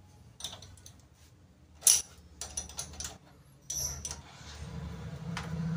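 Scattered metallic clicks and clinks as the rear drum brake's rod adjuster nut is turned by hand to tighten the brake, the sharpest click about two seconds in. A low steady hum starts near the end.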